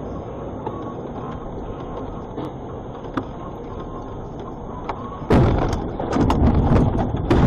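Steady cab and road noise of a vehicle driving on a snowy road, then about five seconds in a sudden loud crash as it leaves the road, followed by heavy rattling, cracking and crunching as it ploughs into the snowy verge.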